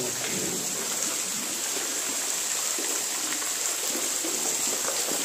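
Flowing water in a stream running steadily, an even rushing noise with no breaks.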